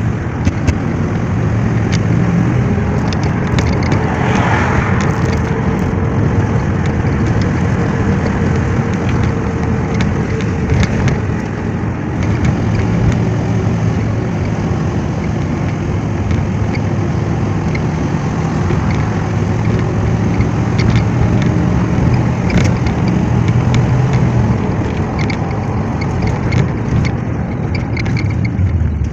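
Motor vehicle running steadily, with a low engine hum under loud road noise that rises and falls a little.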